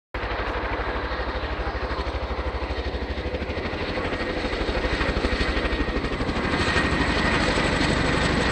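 Boeing Chinook HC.6 tandem-rotor helicopter running: a fast, even beat from the rotor blades under a steady turbine whine, slowly getting louder.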